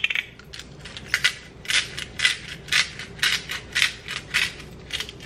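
Hand-twisted salt grinder grinding coarse pink salt crystals: a steady run of crunching clicks, about three a second, starting about a second in.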